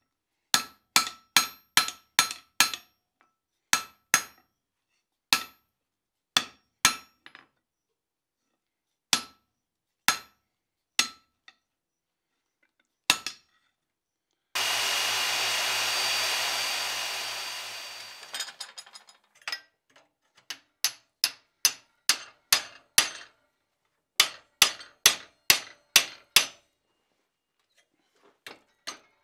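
Blacksmith's hand hammer striking hot steel on an anvil in short runs of sharp, ringing blows, light straightening blows on a forged fire poker's shaft. Near the middle, a steady hiss of about four seconds starts suddenly and fades out.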